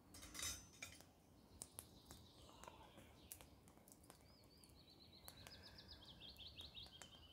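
Faint clinks and ticks of a ladle against a cauldron of fish soup as it is stirred over a wood fire. In the second half a bird sings a wavering, falling song in the background.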